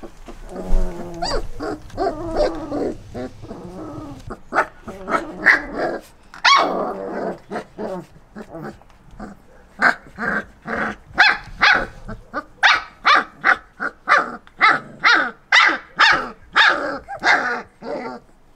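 Three-week-old German Wirehaired Pointer puppies play-fighting: growling and whining at first, then a run of short, high yips and barks about twice a second through the second half.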